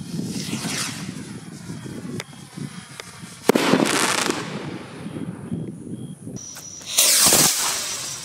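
Skyrocket fireworks bursting in the air: two loud bangs, about three and a half seconds in and about seven seconds in, each fading into a crackling tail, with a few sharp pops between them.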